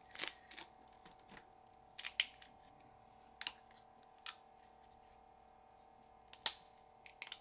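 Snow crab leg shells cracking and snapping as they are broken apart by hand: a handful of separate sharp cracks a second or two apart, the loudest about two seconds in and again near the end.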